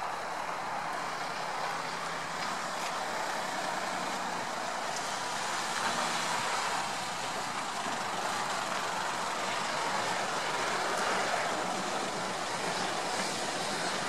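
Steam locomotive working a train along the line, a steady rush of exhaust and running noise.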